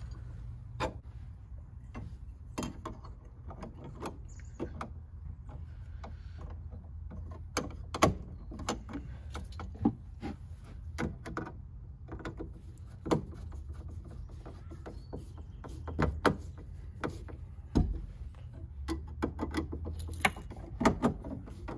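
Irregular clicks, taps and light scrapes of hand work on an electrical box and its mud ring, fitting parts and handling wires, over a low steady hum.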